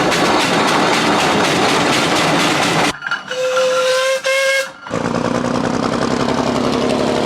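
Tractor engine running hard with a loud noisy rush. It cuts off abruptly and gives way for about two seconds to a clear pitched whistle, sounded in two blasts, before the engine running resumes.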